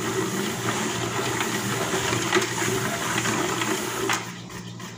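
Plastic salad spinner whirring as it is spun by hand, with a light rattle, flinging the water off washed salad greens to dry them. The spinning dies away about four seconds in.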